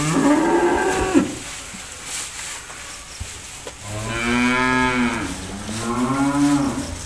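Cattle mooing: a short moo right at the start, then a longer moo from about four seconds in that rises and falls in two swells.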